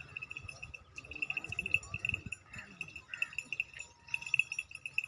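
A steady, high-pitched pulsing insect trill runs throughout, with scattered low thuds and faint crowd voices beneath it.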